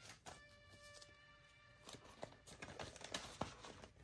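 Faint rustling and soft clicks of paper bills and cash envelopes being handled. A faint held tone sounds for about a second and a half near the start.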